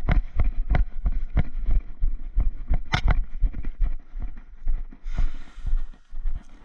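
Running footsteps heard through a body-worn camera, about three heavy thumps a second with gear jostling, easing off into rustling after about four seconds.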